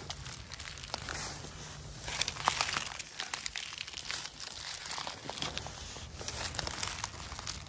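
Footsteps through dry leaf litter: the dry leaves crunch and crackle underfoot in an irregular rhythm, loudest a little after two seconds in.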